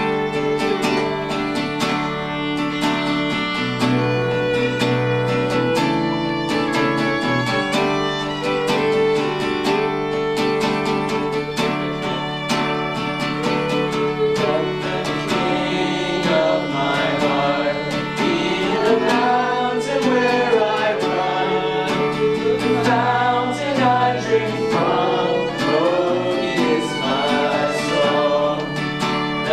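Acoustic bluegrass-style gospel music with guitar and fiddle, and singing coming in about halfway through.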